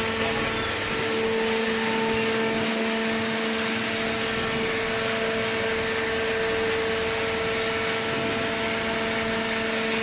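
Small hydraulic cardboard baler running, its motor and hydraulic pump giving a steady hum.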